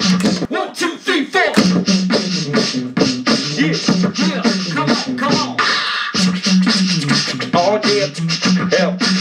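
Two beatboxers performing live over a looped beatbox rhythm from a loop pedal: a steady beat with a repeating bass line, and gliding, scratch-like vocal sounds on top. The bass line drops out just after the start and comes back in about a second and a half in.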